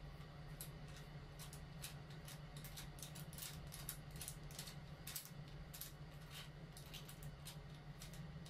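Faint, irregular clicks and ticks of small plastic and metal parts being handled and twisted as the ball-head mount on top of a ring light tripod stand is screwed on, over a steady low hum.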